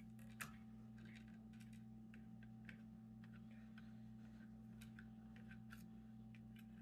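Faint, scattered clicks and ticks of a small screwdriver working at a screw in a laptop's plastic case, with one slightly louder click about half a second in, over a steady low hum.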